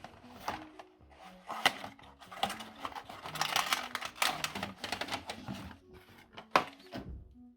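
Hard crunchy cookies cracking and crunching in a meat grinder: a dense run of sharp cracks and clatter, heaviest in the middle, with single loud snaps about two seconds in and near the end. A quiet tune plays underneath.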